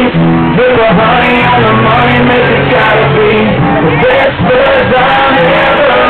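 Live country band playing loud through a concert PA: a singer's voice over the band, with acoustic guitar.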